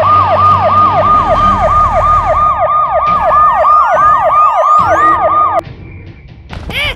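Police siren wailing in quick, repeated falling sweeps, about three a second, that cut off suddenly about five and a half seconds in.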